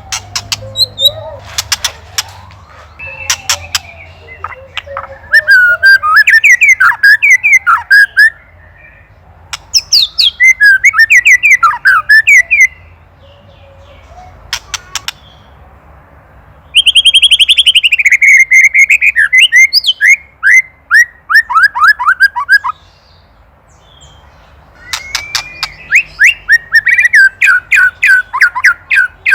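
White-rumped shama giving its 'ketrekan': four bursts of fast, repeated rattling notes a few seconds each, with sharp single clicks between them. This is the agitated, aggressive call the bird makes at a predator.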